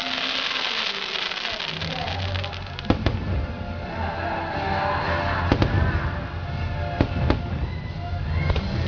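Fireworks bursting: a crackle of small shells, then sharp bangs about three seconds in, twice again near five and a half seconds, and once more at about seven seconds. Show music plays throughout.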